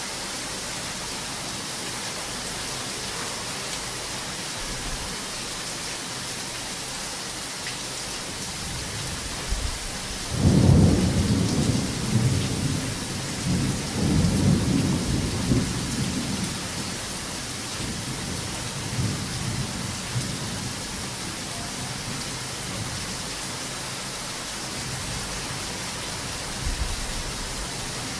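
Heavy rain falling steadily in a thunderstorm. About ten seconds in, a long roll of thunder breaks in. It swells twice and rumbles away into the rain over several seconds.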